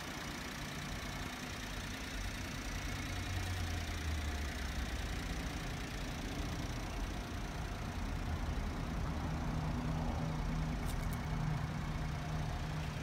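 Honda Acty HA4 kei truck's small three-cylinder engine idling steadily.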